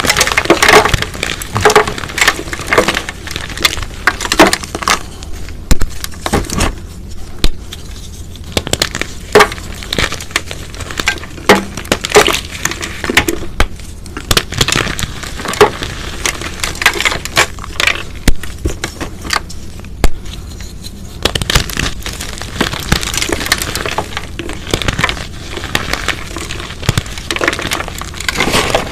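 Sun-dried chalk crunching and crumbling as chunks and powder are squeezed in bare hands: dense, irregular crackles and crunches, with a couple of short lulls.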